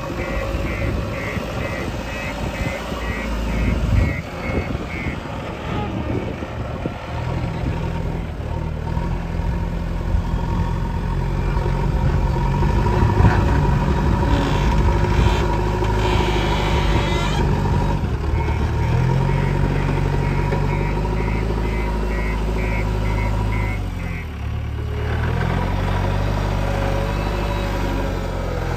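Diesel engine of a JCB 3DX backhoe loader working, its revs rising and falling under load. A quick, evenly spaced electronic beep sounds for the first few seconds and again about two-thirds of the way through.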